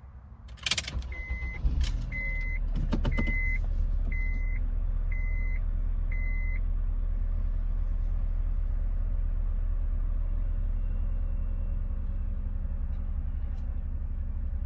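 Acura RSX Type S's K20A2 2.0-litre four-cylinder engine started with the key: a few clicks, then the engine catches about two seconds in and idles steadily. Over the start a dashboard chime beeps six times, about once a second.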